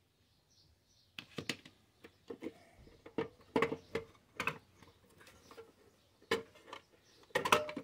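Sheet-metal parts of a Johnson Model D fare box being wiggled and worked by hand as an inspection door is angled against its lever mechanism. Irregular metal clicks, clunks and rattles start about a second in and bunch together near the end.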